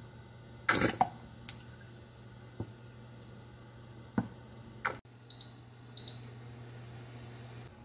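Oil trickling into a frying pan with a few sharp knocks and clatters, the loudest about a second in. Near the end, two short beeps from an induction cooktop's touch controls as it is switched on, followed by a faint high whine.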